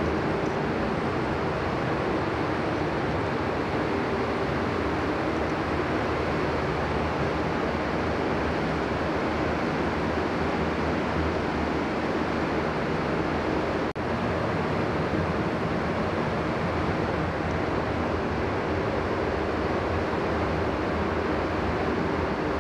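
Paint spray booth ventilation fans running: a steady rush of moving air with a low hum, broken once by a brief dropout about two-thirds of the way through.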